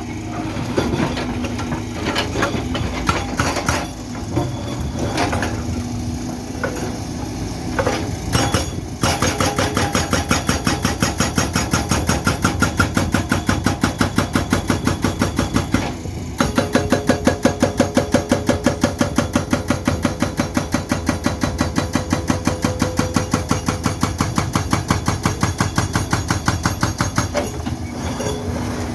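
Sany excavator's engine running with scattered metal clanks, then its hydraulic breaker hammering concrete in a fast, steady run of blows, several a second. The hammering stops briefly just past halfway, then resumes until near the end.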